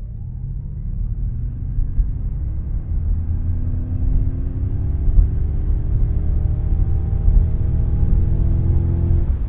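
Ford Mustang Mach-E's synthesized engine sound in Unbridled mode: a deep rumble with a tone that rises steadily as the car accelerates, an electric imitation of a Mustang engine's roar.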